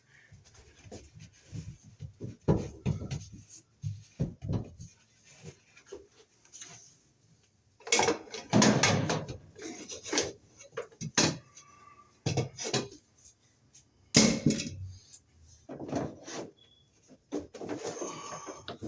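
Irregular scraping, rubbing and knocking of Romex cable being fished up through a wall cavity, with the loudest bouts of handling about eight and fourteen seconds in.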